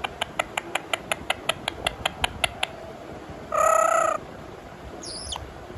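Indian ringneck parakeet clicking rapidly, about six clicks a second for nearly three seconds, then giving one short harsh call and, near the end, a brief high falling whistle.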